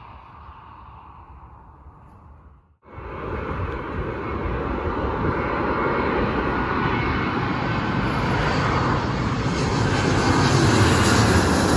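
Faint sound of a distant aircraft on the runway, cut off about three seconds in; then the jet engines of an Airbus A320 airliner on low final approach, a steady rumble and hiss that grows louder as it comes overhead.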